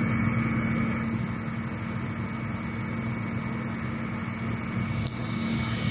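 Crawler excavator's diesel engine idling with a steady low hum; a higher hiss comes in about five seconds in.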